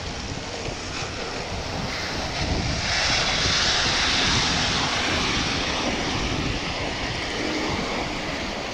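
Steady rushing of wind and wet-road noise on a bicycle ride in the rain, with a louder hiss that swells about three seconds in and slowly eases off.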